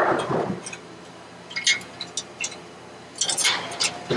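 Thin sheet-metal heat shield of a catalytic converter scraping and clinking against the pipe as it is fitted back into place by hand. A scrape comes at the start, a few light ticks follow in the middle, and a quick run of clinks and scrapes comes near the end.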